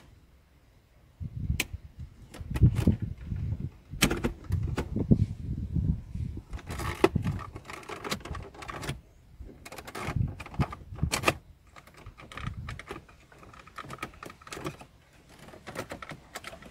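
Irregular clicks, knocks and rattles of hands working on a car's plastic dashboard trim, prying at and pulling caps and plugs around the head unit. They start about a second in.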